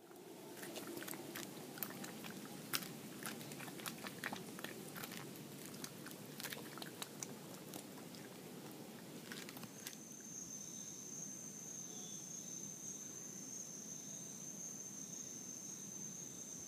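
White-nosed coati (pizote) chewing and biting into ripe papaya, a quick run of wet clicks and smacks. About ten seconds in this gives way to a steady high-pitched whine.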